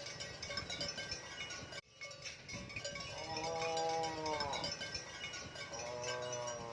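Two long, drawn-out cattle moos, each rising and then falling in pitch, over background music with chiming tones. The music drops out for a moment about two seconds in.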